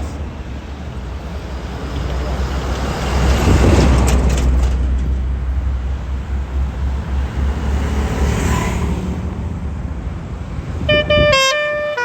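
A tour bus passes close by, its engine rumbling heavily and loudest about four seconds in. Near the end a basuri telolet musical horn starts playing a quick tune of stepped notes.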